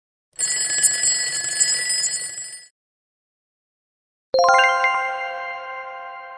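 Quiz sound effects: a bell rings steadily for about two seconds as time runs out. After a pause, a single bright chime is struck once and rings out, fading slowly.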